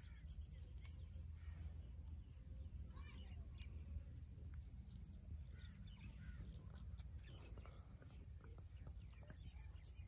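Straight razor scraping through stubble on a man's cheek and along his moustache line in short, crisp strokes, faint, over a steady low rumble.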